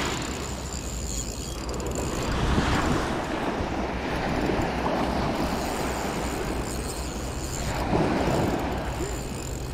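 Surf washing on the shore in slow swells, with wind rumbling on the microphone, while a Shimano Vanquish spinning reel is cranked to play a hooked fish on a bent rod.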